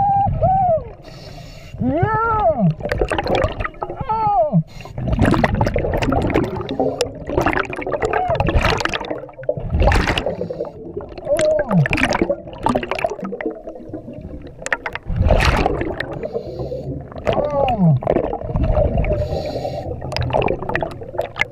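Scuba diver breathing through a regulator underwater: repeated bursts of exhaled bubbles rushing past the microphone, with a few brief rising-and-falling tones.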